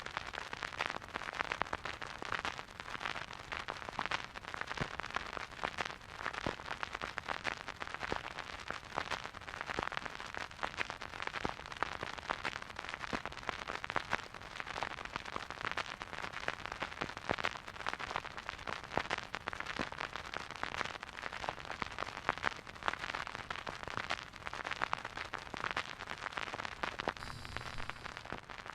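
Vinyl record crackle from a record player playing a silent groove: a steady surface hiss thick with rapid, irregular clicks and pops from dust and scratches on the disc.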